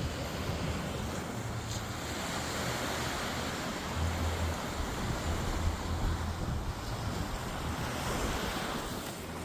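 Sea waves washing onto a beach, a steady surf, with wind rumbling on the microphone from about four seconds in.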